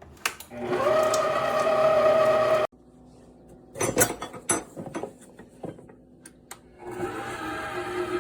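Electric stand mixer motor (HOWORK 660 W tilt-head) switched on and running a steady whine for about two seconds, then cutting off suddenly. A few clicks follow, then the motor starts up again near the end, while the speed knob is being worked through its settings.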